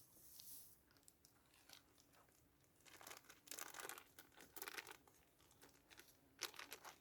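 Faint, irregular rustling and crinkling as groundbait and its plastic packet are handled, the bursts coming thicker about halfway through.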